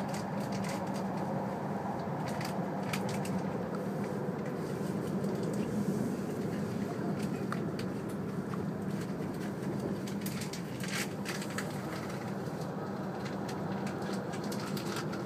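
Interior running noise of an E5 series Shinkansen heard from inside the passenger cabin: a steady rumble with a low hum, with a few faint clicks scattered through it.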